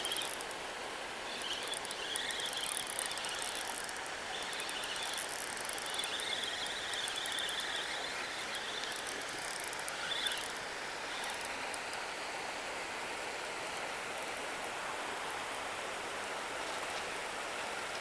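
Spinning reel cranked in spells with a thin whirring whine while a hooked fish is brought in, over a steady rush of river current and wind. The reeling stops after about ten seconds.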